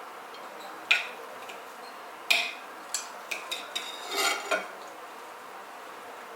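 Dishes and cutlery clinking: a sharp clink about a second in, then a run of about seven more clinks and knocks with short ringing tones between about two and four and a half seconds in.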